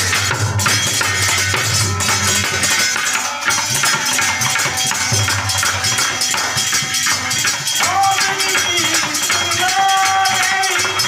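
Live devotional folk music: a dholak drum beating a fast rhythm, a harmonium holding chords, and long iron tongs (chimta) jingling on the beat. A man's voice sings from about eight seconds in.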